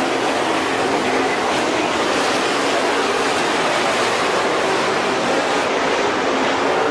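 Several dirt-track modified race cars running at speed around the oval together, a steady, dense engine noise from the pack with no single car standing out.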